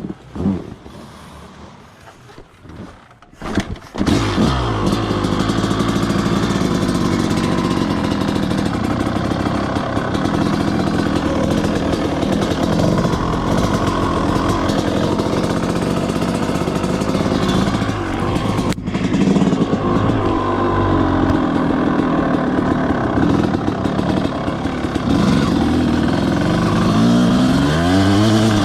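A 250cc two-stroke motocross bike is ridden hard, its engine pitch rising and falling with the throttle. It is quieter and uneven for about the first four seconds, then loud and sustained, with a momentary break about two-thirds of the way through.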